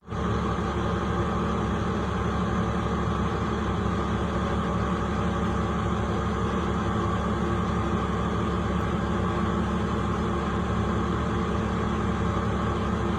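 Excavator's diesel engine running at a steady speed, an even, unchanging drone.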